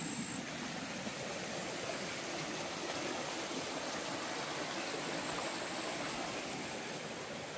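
Small stream running over rocks: a steady rush of flowing water.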